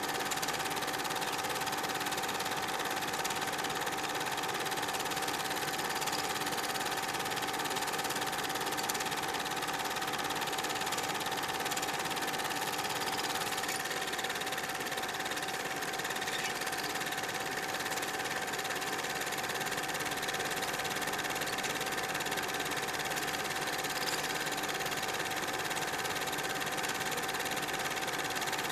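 Super 8 film projector running: a steady mechanical whir with one constant tone through it.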